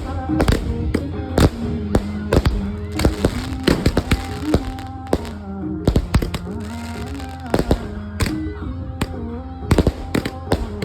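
Supreme 120 multi-shot firework cake going off: a string of sharp bangs at irregular intervals, some in quick clusters, over background music with a melody.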